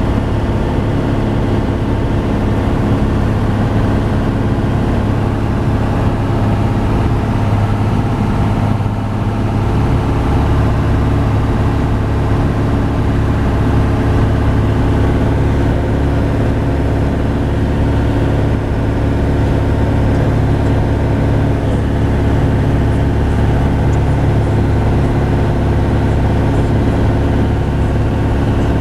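A light aircraft's engine and propeller running steadily, heard from inside the cabin as an even drone. About ten seconds in the low hum grows stronger and stays that way.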